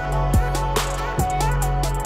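Background music with a steady bass, a melody and deep kick drum hits that drop in pitch.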